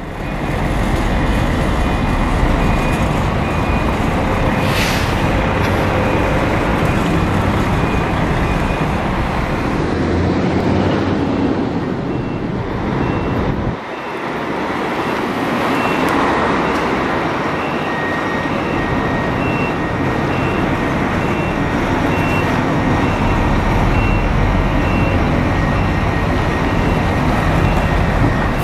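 Scania diesel coach engine running close by as the bus moves off and turns, its low rumble strongest near the end. A high electronic beep repeats at an even pace through much of it.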